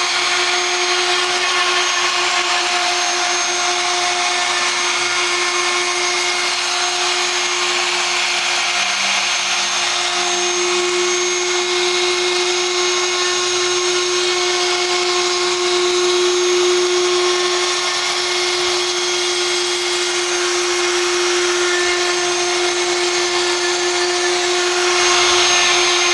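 CNC router spindle running at constant high speed, a steady whine with a hiss of cutting noise over it.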